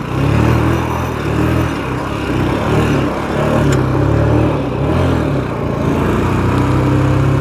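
Motorcycle engine revving, its note rising and falling repeatedly, then holding steadier for the last two seconds or so as the bike pulls away over soft muddy ground.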